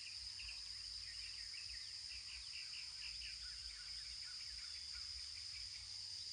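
Insects droning in a steady high-pitched band, with short chirps repeating a few times a second over the first half, over a faint low rumble.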